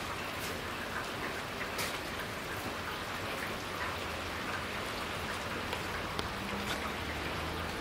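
Steady rain falling on wet pavement, with now and then the sharp tick of a single drop landing close by.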